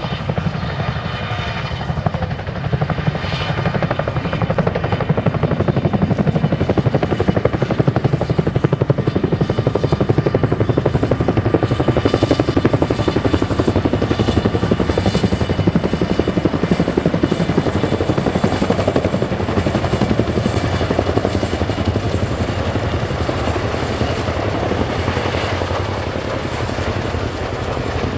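Boeing CH-47J Chinook tandem-rotor helicopter flying close, its twin turboshaft engines whining under a rapid, steady rotor beat. It grows louder toward the middle, then eases slightly near the end.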